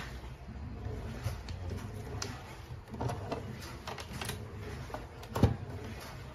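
Capsule espresso machine brewing: its pump gives a steady low buzz while coffee runs into a cup of iced milk, with a few light knocks and a heavier thump about five seconds in.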